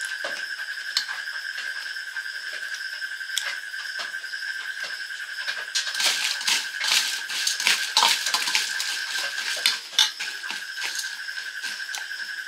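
Steel spoon clicking and scraping against a steel bowl of dry puffed rice (muri), with a dense crackly stretch of stirring from about six to ten seconds in.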